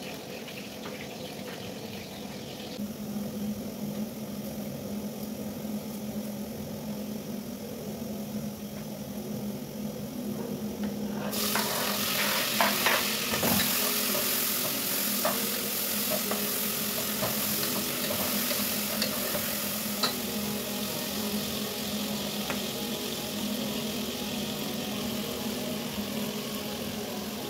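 Chopped tomatoes sizzling as they fry in a pot on a gas stove, stirred and scraped with a plastic spoon. The sizzle starts suddenly about a third of the way in and then runs on steadily.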